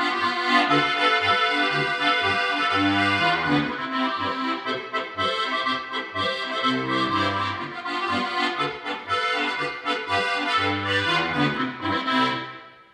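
Diatonic button accordion (Slovenian frajtonarica) played solo: melody and chords over deep bass notes, the music dying away and stopping at the very end as the piece finishes.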